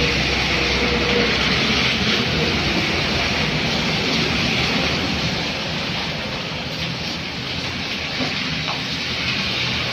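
Vehicles on a flooded road over a steady hiss of rain: an old 4x4's engine runs as its tyres throw up spray, then a car's tyres hiss through the water. The traffic noise eases about seven seconds in, and the rain goes on.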